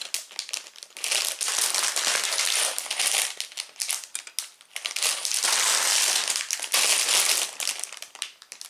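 Clear plastic bags of LEGO parts crinkling and rustling as they are handled, in several bursts with short pauses, dying away near the end.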